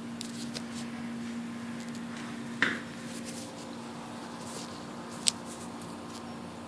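Faint hand-handling noises as the fuel line is worked off a dirt bike's fuel petcock: a few small clicks and rustles, the sharpest about two and a half seconds in and a short tick around five seconds, over a steady low background hum.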